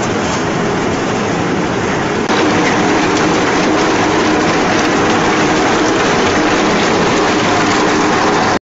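Log shredder running and breaking up logs and branches as they are fed into its toothed rotor: a dense, steady machine noise that gets louder a couple of seconds in and cuts off abruptly near the end.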